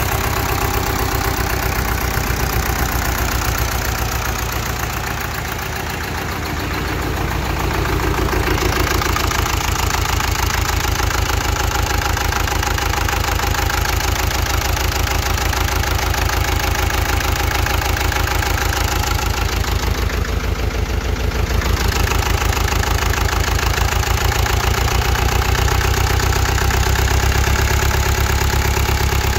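1959 Case 800 tractor's diesel engine running steadily with an even beat, newly brought back to life after a rebuild. It eases off slightly a few seconds in, then picks up again.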